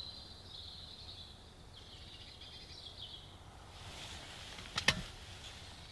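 Quiet woodland ambience with a small bird singing a high, wavering phrase for about the first three seconds. A few sharp clicks come about five seconds in.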